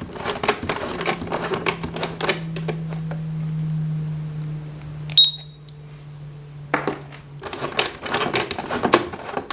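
Plastic keys and parts of a toy electronic cash register clicking and clacking as items are rung up, with one short high beep about five seconds in. A low steady hum runs underneath for several seconds.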